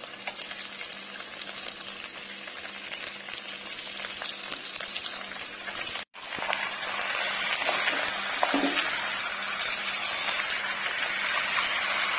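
Raw chicken pieces and sliced garlic sizzling in hot oil in a wok: a steady crackling hiss with scattered small pops and clicks. It cuts out for an instant about six seconds in and is louder after that, once more chicken is in the pan.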